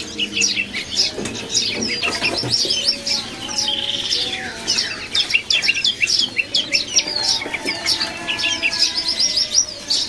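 Small caged songbirds chirping and twittering in a dense, rapid chorus of short high calls and quick sweeping notes, with no let-up.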